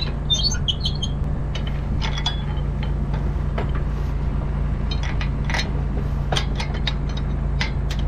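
Tractor engine idling steadily, with scattered sharp metallic clicks and clinks as the hay mower's hitch lever and latch are worked by hand.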